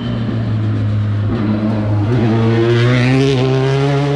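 Rally car engine accelerating hard as the car passes close by, the revs climbing through the gears with a short break about a second in, then dropping suddenly at the end as the driver lifts off.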